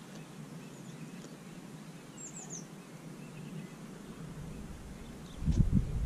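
A small songbird chirping: a quick run of three high, falling chirps about two seconds in, with a few fainter chirps around it, over steady outdoor background noise. A low rumble starts near the end.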